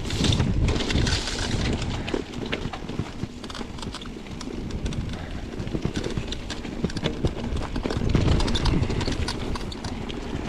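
Mountain bike rolling down a wet dirt trail, with tyres on dirt and rocks and many quick clicks and rattles from the bike over bumps. Wind buffets the microphone.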